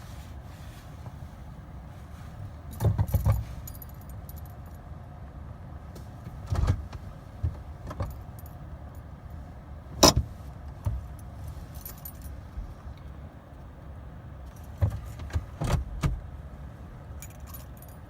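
A bunch of keys jangling and clicking at the Jeep's ignition as the key is worked, in several short bouts with one sharp click about ten seconds in, over a steady low hum. No starter cranking or engine firing is heard: the Jeep is not starting.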